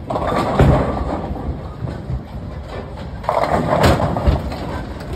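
Bowling ball thudding onto a wooden lane and rolling with a low rumble, then a clatter of pins being struck about three and a half seconds in.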